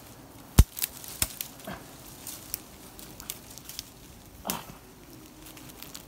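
Sharp knocks and snaps of branches handled against a tree trunk, the loudest about half a second in and another a moment later. Bees from a wild colony being smoked buzz past in short passes falling in pitch, twice.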